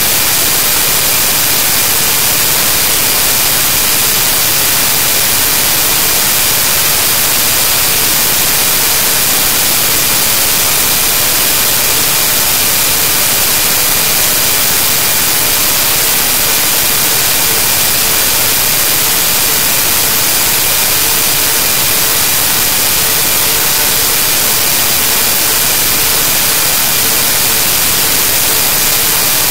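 Loud, steady static hiss with a few faint steady tones under it, unchanging throughout. This is the noise of corrupted digital audio: the file is garbled at this point.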